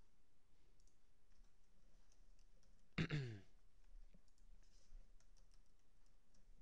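Faint clicking of a computer mouse and keyboard. About three seconds in comes a short voiced sigh that falls in pitch, the loudest sound here.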